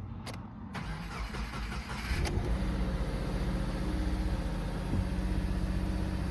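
2019 Subaru Impreza's 2.0-litre flat-four engine starting about two seconds in, then settling into a steady idle.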